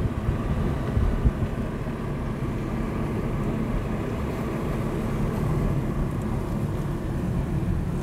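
Car driving slowly on a paved road, heard from inside: a steady low rumble of engine and tyres, with a couple of brief thumps about a second in.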